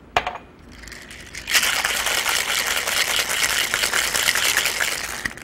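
Ice rattling in a metal cocktail shaker tin, shaken hard for about four seconds to mix and chill the drink. A single sharp knock comes just after the start, before the shaking begins.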